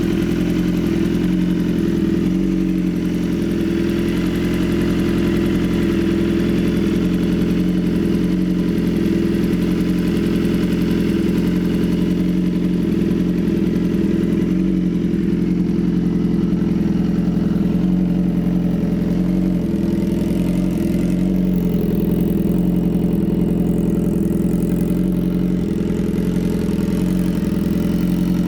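BMW S 1000 RR HP4's inline-four engine idling steadily, warming up after a cold start.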